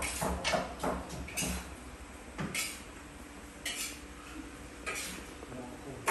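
Pots, dishes and utensils clinking and knocking in a busy home kitchen: a quick run of clinks in the first second and a half, then single clinks about a second apart.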